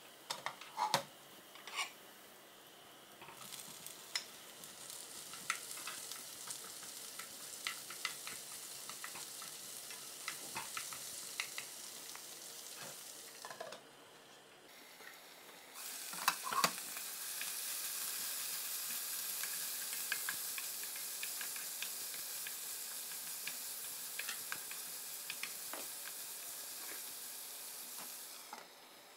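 Sliced onion and garlic sizzling in olive oil in a frying pan, then chopped bell peppers frying more loudly after a few sharp knocks about halfway through. A few clacks of the pan or lid come in the first two seconds.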